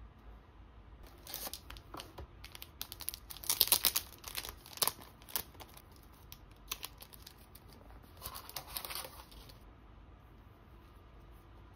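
Clear plastic crinkling and crackling as a photocard in a clear plastic sleeve is pushed into a clear binder-page pocket and pressed flat. It comes in irregular crackles starting about a second in, loudest a little after three seconds, with a smaller flurry near the end.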